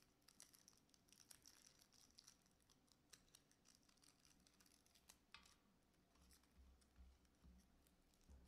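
Near silence: faint room tone with scattered small clicks and rustles, and one sharper click about five seconds in.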